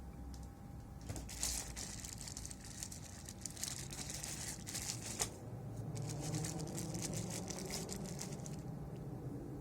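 Crinkly rustling and crackling, like something being handled or crumpled at close range, in two stretches of a few seconds each with a short pause between.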